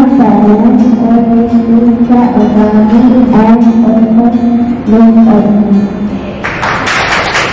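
Music: a melody of held notes over a plucked-string accompaniment. About six and a half seconds in, a brighter, noisier layer joins.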